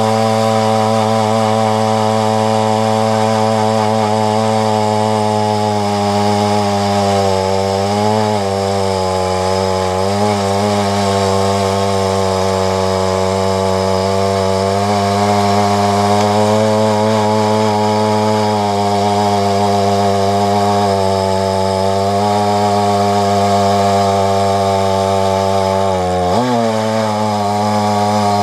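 Husqvarna 372XP two-stroke chainsaw with a 28-inch bar running at steady high revs under load, ripping lengthwise through a walnut log in a chainsaw mill. Its pitch wavers slightly a couple of times and drops sharply near the end before picking straight back up.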